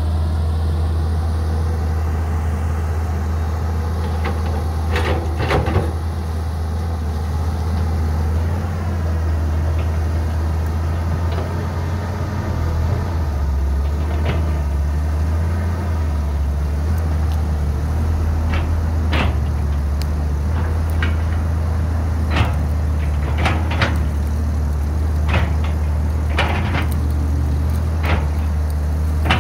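Cat 320CL hydraulic excavator's diesel engine running steadily under load as it digs and swings, with repeated sharp knocks and clanks from the bucket and falling earth, most of them in the second half.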